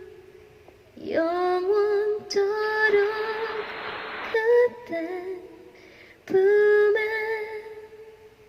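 A woman singing a cappella, holding long wordless notes in two phrases, with a patch of hiss under the first. The last note fades away near the end.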